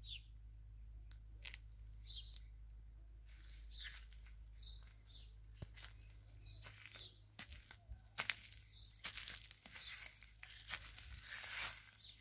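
Small birds giving short, repeated falling chirps, with rustling of leaves and footsteps through grass that grow denser and louder in the second half.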